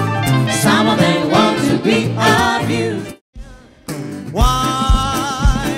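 Live band music: a vocal trio sings in harmony over guitar, piano and sax. It cuts out abruptly about three seconds in and switches to a singer holding a long note with vibrato over guitar, keyboard and a digital drum kit keeping a steady kick-drum beat.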